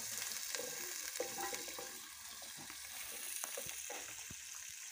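Food sizzling in a metal pot over an open wood fire: a steady hiss with scattered short clicks and knocks as it is stirred.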